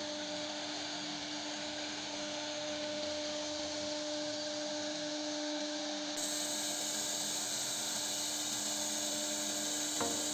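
CNC router spindle running steadily as it carves wood: a steady whine over an even hiss.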